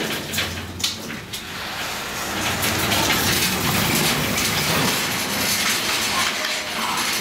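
Metal shopping trolleys rattling as they are wheeled across the elevator floor, after a few sharp clicks as the elevator doors open.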